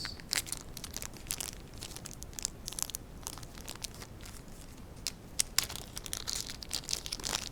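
Packaging crinkling and rustling as it is handled and pulled apart, with scattered sharp clicks and taps. The rustling gets denser about five and a half seconds in.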